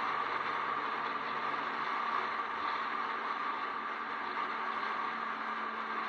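A Jeep driving steadily at speed on smooth pavement: a constant drone of tyre and wind noise with a steady engine hum underneath, picked up by a camera mounted low on the outside of the vehicle.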